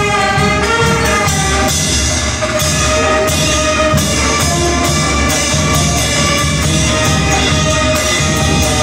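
A wind band playing live: brass and woodwinds, saxophones and a sousaphone among them, in a full, continuous passage.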